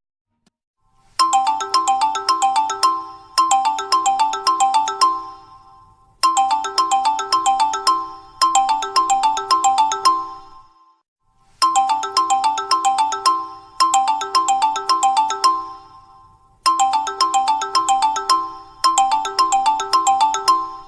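Mobile phone ringtone: fast electronic warbling trills, each about a second long, in sets of four, each set repeating about every five seconds.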